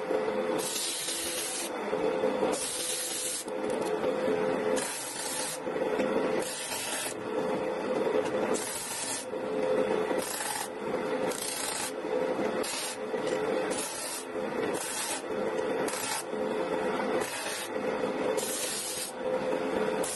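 Disc sander running with a steady hum while small wooden pieces are pressed against the sanding disc again and again. Short rasping bursts of sanding come roughly once a second.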